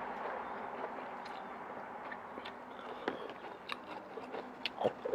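A person eating a bowl of instant-noodle kuay teow close to the microphone, chewing, with a few short sharp clicks in the last two seconds over a steady background hiss.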